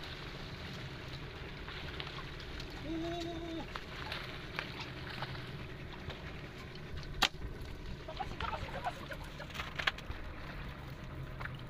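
Small fishing boat on open sea: a steady low rumble with wind and water noise. A brief pitched tone comes about three seconds in, and a sharp knock, the loudest sound, about seven seconds in, followed by a few lighter clicks.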